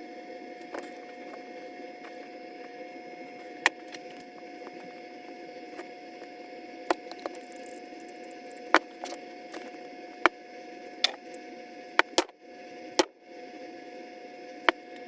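Sharp clicks and knocks of tools and small parts being handled while an angle grinder is taken apart: about a dozen separate hits, irregularly spaced and thickest in the second half, over a steady background hiss.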